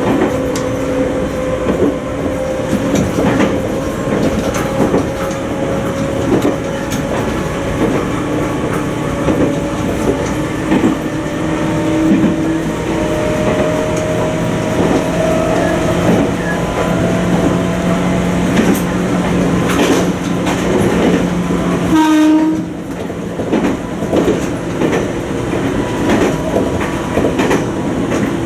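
A Toyama Chihō Railway 20020 series electric train (ex-Seibu New Red Arrow) running, heard from on board. Its motor and gear whine rises slowly in pitch as it picks up speed, over a steady clatter of wheels on rail joints. About 22 seconds in there is a short tone, then a low hum stops and the running sound drops a little.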